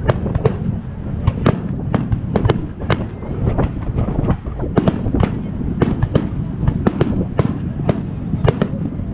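Fireworks display in full barrage: sharp shell bursts and reports, two or three bangs a second, over a continuous low rumble.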